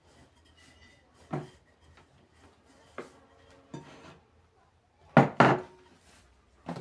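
Kitchen utensils knocking and clattering: a few scattered sharp clacks, with two loud ones in quick succession about five seconds in.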